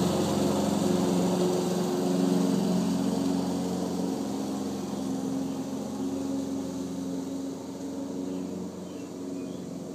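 Walk-behind lawn mower's small engine running steadily, growing fainter as the mower moves away.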